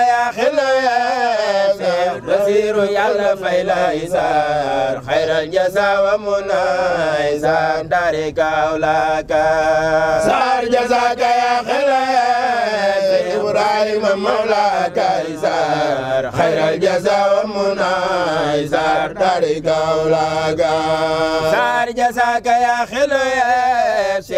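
Men's voices chanting a Mouride Sufi devotional praise song in long melodic lines, without a break.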